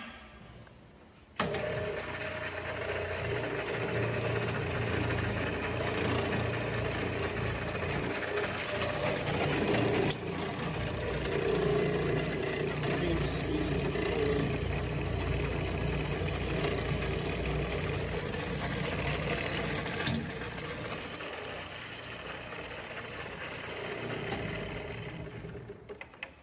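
Sheldon 10-inch metal lathe switched on about a second and a half in, its motor and V-belt pulley drive then running steadily. There are two sharp clicks along the way, and the sound tapers off and stops near the end.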